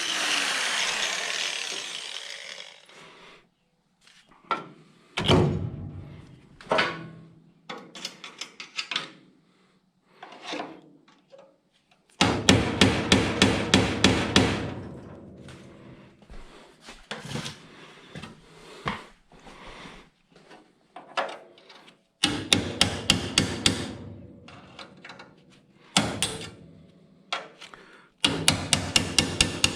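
Power tool spinning down at the start, then quick runs of hammer blows on car-body sheet metal, about six a second, three times, with scattered single knocks between.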